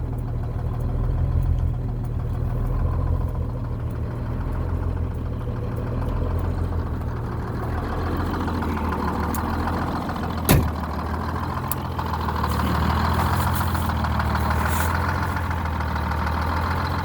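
Detroit Diesel 6-71 two-stroke inline-six diesel idling steadily, with one sharp click about ten and a half seconds in.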